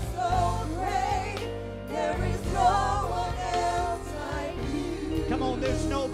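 Gospel-style worship music: a lead singer's voice with wide vibrato over a band's steady bass.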